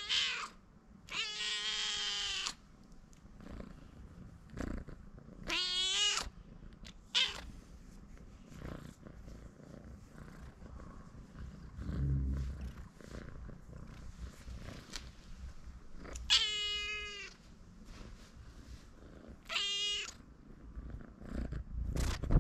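Young domestic cat meowing loudly, about six separate calls. The longest call comes near the start and lasts about a second and a half; the rest are shorter.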